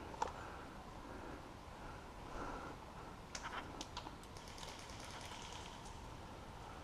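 Faint scattered clicks and light rustling: one sharp click just after the start, a short cluster of clicks a little past the middle, then fine faint ticking.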